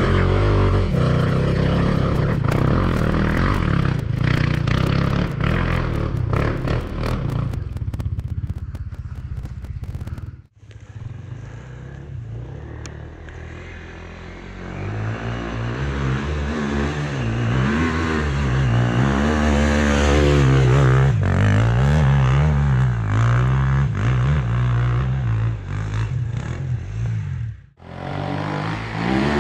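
Enduro motorcycle engine running and revving up and down, with rattling and clattering in the first part. The sound cuts off abruptly about ten seconds in and again near the end.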